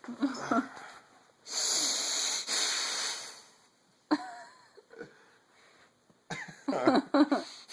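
A person making loud, exaggerated wheezing breaths, with one long rasping breath in the middle broken by a short pause. Short throaty vocal noises come near the start and again near the end.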